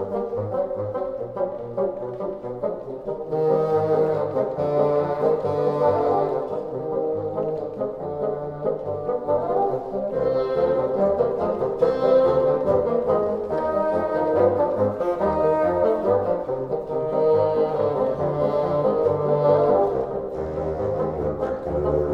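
Wind ensemble playing slow, sustained chords over a moving bass line, with a mellow horn-like tone.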